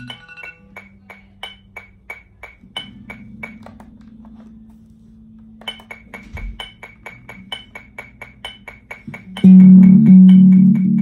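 Electric bass guitar played over a fast, even ticking beat of about four clicks a second. Quiet held notes come first, then loud plucked notes from about nine and a half seconds in. The ticking pauses for about two seconds in the middle.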